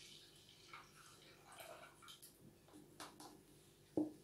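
Faint kitchen handling sounds as milk is emptied from a plastic measuring jug into a saucepan, with a few light clicks and one short knock about four seconds in.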